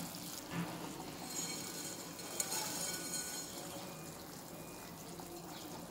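Pot of chicken soup boiling: a steady bubbling hiss, with a couple of light clicks.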